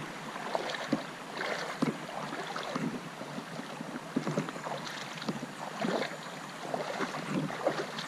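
Water splashing and sloshing in irregular bursts as legs wade through a shallow creek.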